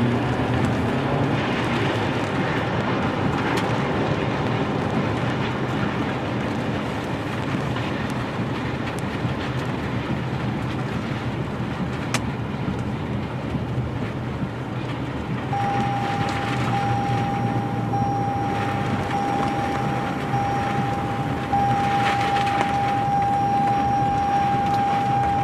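Steady, dense wind noise from a tornado, with a low rumble underneath. About fifteen seconds in, a steady high single-pitch tone starts, broken at first and then unbroken, while the whole sound gets louder.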